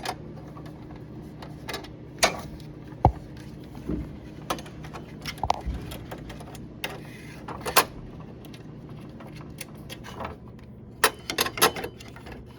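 A nut driver unscrewing the nuts that hold a metal panel in a vending machine: scattered metallic clicks and taps, with a quick run of clicks near the end.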